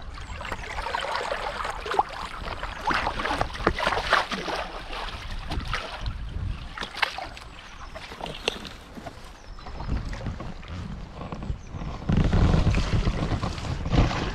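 Water splashing and dripping from the blade of a stand-up paddle as it is stroked through the river, with wind on the microphone that grows heavier near the end.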